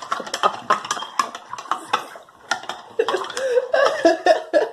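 Slime being stirred in a bowl: quick, irregular clicks and taps for the first couple of seconds. From about three seconds in, a wordless voice with a wavering pitch joins in.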